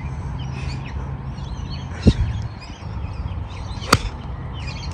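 A 7-iron striking a golf ball off fairway turf: one sharp click about four seconds in, the loudest sound. A dull thump comes about two seconds in, with birds chirping and a steady low rumble throughout.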